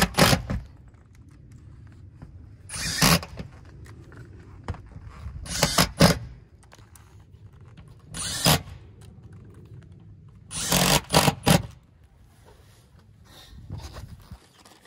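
Cordless impact driver running in five short bursts, about every two and a half seconds. It is sinking neoprene-washered metal roofing screws through a vent-pipe boot's metal flange into the roof, compressing the butyl tape beneath.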